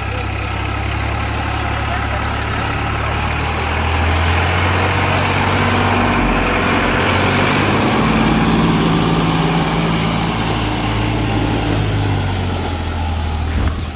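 Heavy diesel engine running under load, getting louder about four seconds in, with its engine note shifting as it works, then easing off near the end.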